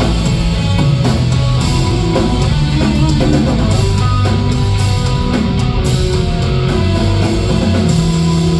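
A rock band playing, with electric guitar and drum kit, loud and steady, as the song's closing section.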